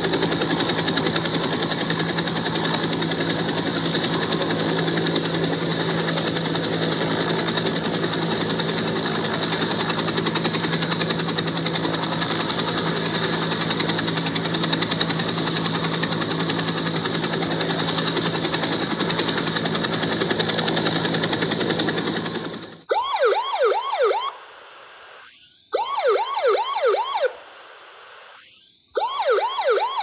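Helicopter turbine and rotor running steadily, cutting off suddenly about three-quarters of the way through. Three short bursts of a police car siren follow, each a rapid rising-and-falling yelp, with brief quiet between them.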